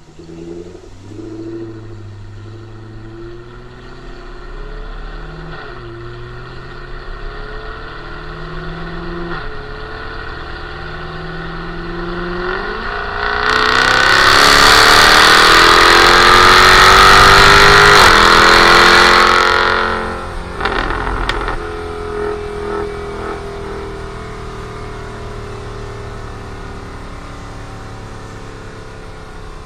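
Jaguar F-Type Coupé engine and exhaust revving: several short throttle blips, then a loud sustained rev about halfway through with the pitch climbing for around six seconds. It cuts off sharply, a few exhaust pops and crackles follow on the lift-off, and the engine settles back to a steady lower running note.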